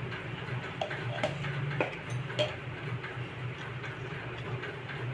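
A few light, irregular clicks of a spoon knocking against a metal cooking vessel as spoonfuls of spice are tipped in, over a steady low hum.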